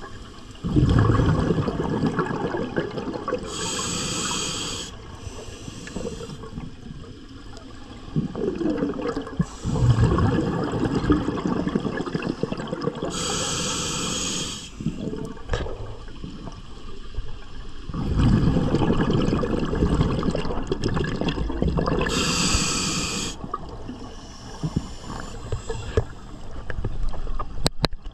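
Scuba diver breathing through a regulator underwater: a long rumble of exhaled bubbles, then a short hiss of inhalation, three times, about every nine seconds.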